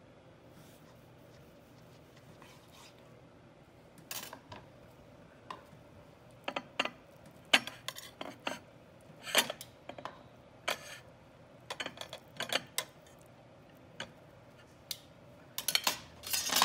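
Metal serving utensil clicking and scraping against a ceramic plate as sliced meat is arranged on it: scattered sharp clinks that begin about four seconds in and bunch together near the end.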